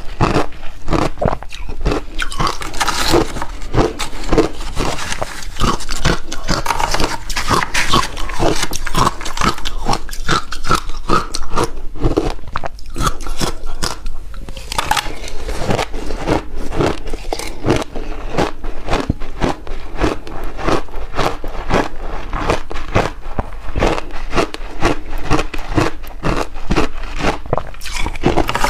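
Close-miked biting and chewing of refrozen shaved ice, a dense run of sharp crunches and crackles as the ice breaks between the teeth.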